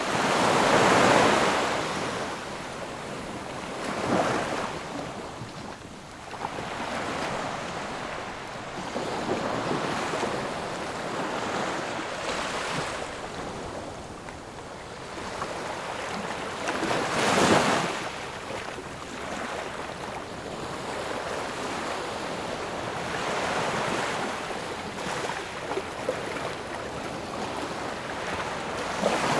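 Ocean waves washing on a shore in a continuous rush, with breakers surging about a second in, again around four seconds, and loudest a little past halfway.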